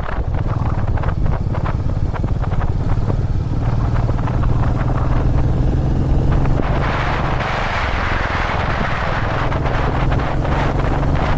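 Royal Enfield Meteor 350's single-cylinder engine running at a steady cruising speed on the road. About seven seconds in, a rushing hiss swells over the engine and then eases off.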